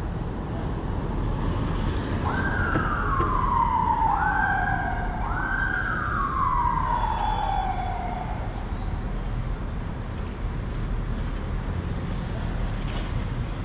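Emergency-vehicle siren wailing three times, each wail climbing quickly and then sliding slowly down in pitch, over a steady low background rumble.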